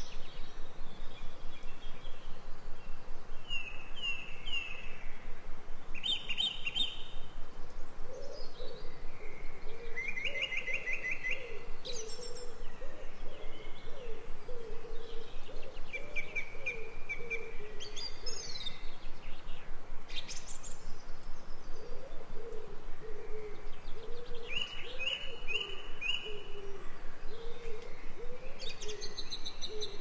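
Woodland birdsong: small songbirds singing short chirping and trilled phrases every few seconds, with a low cooing call wavering through the second half, over a steady background hiss.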